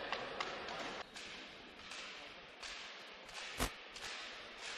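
A volleyball smacks once on the court floor about three and a half seconds in, a single sharp impact as the server bounces the ball before serving. Under it is the low steady hubbub of an indoor arena crowd.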